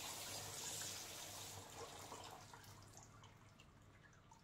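Kitchen tap running faintly into a stainless steel sink, the water splashing over hands and vegetables being rinsed in a steel strainer. The running water fades out about two and a half seconds in, leaving a few faint drips.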